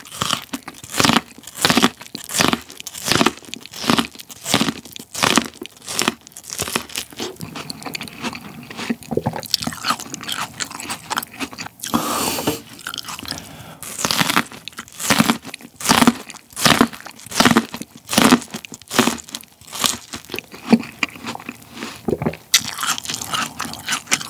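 Raw chodang sweet corn eaten straight off the cob, close-miked: crisp, juicy kernels crunching under repeated bites and chewing, about two crunches a second, with a denser, messier stretch of chewing near the middle.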